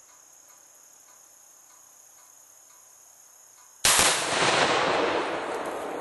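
Insects chirping steadily, then about four seconds in a single loud blast as a one-pound Tannerite exploding target detonates. The boom rolls on and fades slowly.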